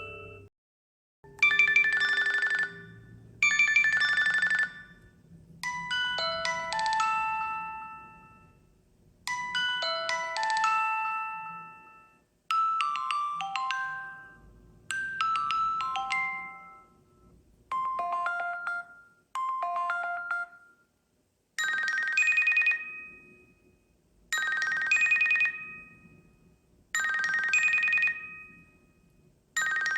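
Samsung Galaxy Watch 8 ringtones playing: bright, bell-like electronic chime melodies in short phrases that repeat every few seconds. The tune changes a few times, with a brief silence about a second in.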